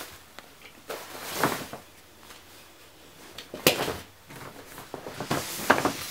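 Paper gift bag and plastic wrapping rustling and crinkling in irregular bursts as items are handled and packed back into the bag, with a sharper crackle about two-thirds of the way through.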